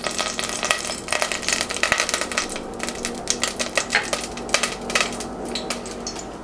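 Cooking oil heating in a pan on the stove, crackling and spitting with many irregular sharp clicks.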